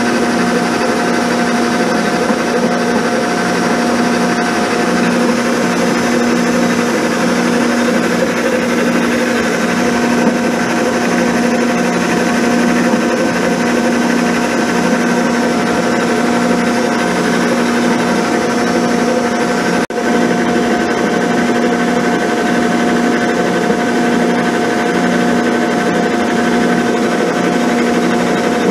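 Abene milling machine running with a 6-flute end mill cutting along the top of a straight-edge casting: a steady, even machine hum and whine with the rasp of the cut.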